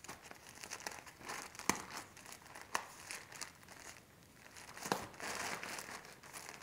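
Plastic mailer bag crinkling as it is handled and cut open with scissors, with a few sharp snips, and a longer burst of crinkling about five seconds in.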